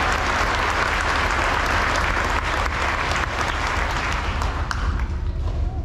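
Audience applauding, a dense patter of many hands clapping that fades away near the end, over a low steady rumble.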